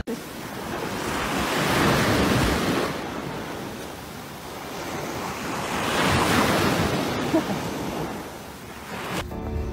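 Ocean surf washing up on a beach, swelling twice as waves come in, with wind buffeting the microphone.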